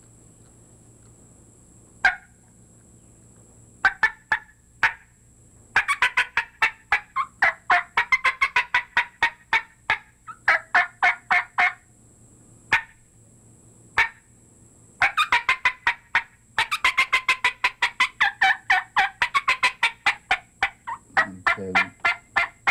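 Imitation wild turkey hen calling on a diaphragm mouth call: excited cutting. A few single sharp clucks come first, then long fast, irregular runs of clucks and cuts, broken by short pauses.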